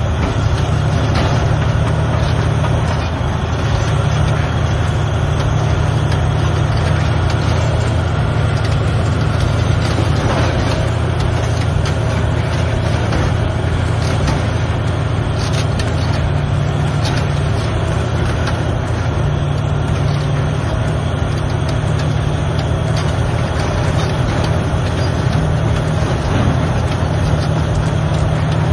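Large crawler bulldozer's diesel engine working, a steady deep drone, with a few faint clanks.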